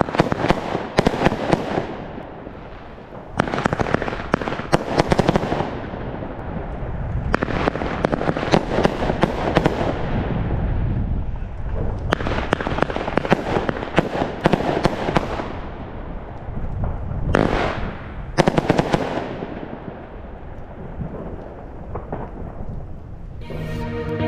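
Wolff Air Raid 20 mm fireworks cake firing: dense volleys of sharp bangs and crackling, in about five bursts separated by short lulls, with a low rumble between.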